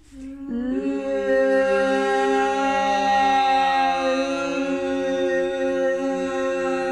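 A woman's voice holding one long, steady vocalised tone on a single pitch, starting about half a second in. It is a voice exercise, the tone sounded while the tongue slides along the lip toward the corner of the mouth, and its colour shifts slightly midway.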